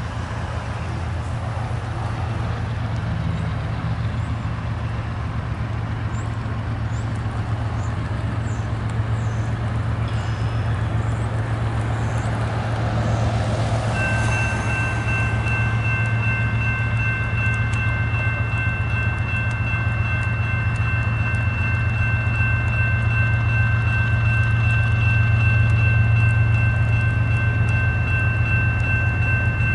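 Empty coal train rolling by: a steady low rumble of diesel locomotives and rail cars that slowly grows louder. A road vehicle's tyres hiss past on wet pavement about halfway through, and then a steady high-pitched whine holds to the end.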